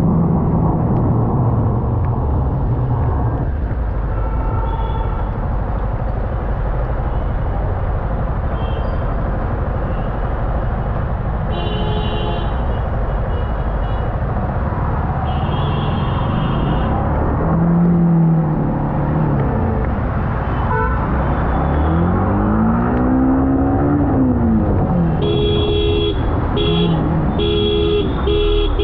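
Yamaha R15 M motorcycle riding through slow traffic on a wet road: steady engine, wind and tyre noise. Car horns honk about twelve seconds in, again around fifteen seconds, and in a string of short toots near the end. Around the middle an engine revs up and falls back twice.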